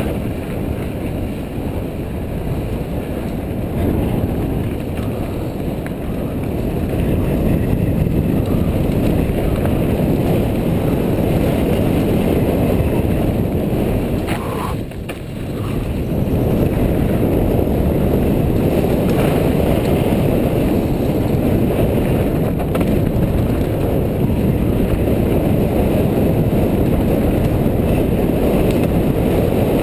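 Wind buffeting the microphone of a bike-mounted camera, with the rattle and tyre roar of a mountain bike rolling fast down a loose dirt and gravel trail. There is a brief lull about halfway through and an occasional knock from the bike.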